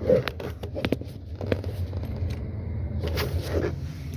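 Irregular clicks and light knocks over a steady low hum.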